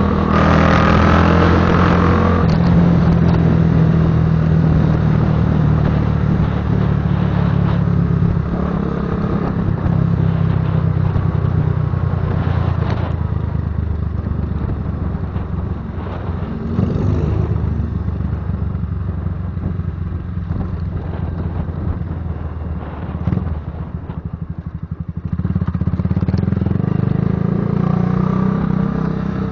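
Patagonia Eagle motorcycle's engine and exhaust running under way, a steady rumble that eases off about three quarters of the way through and then picks up again.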